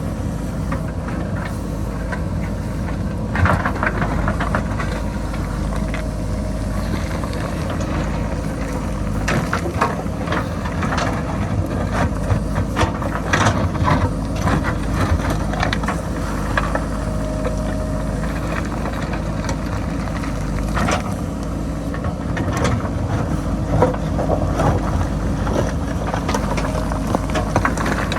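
JCB backhoe loader's diesel engine running steadily under load, with repeated clatter and knocks of rocks and stones as the bucket works the rocky hillside and loosened stones fall.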